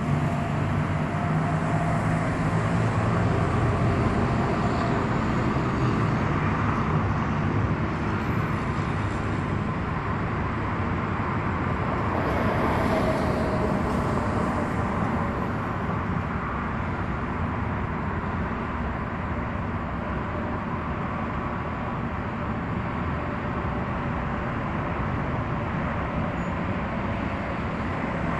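Steady outdoor city background noise: a constant low rumble and hiss with no distinct events.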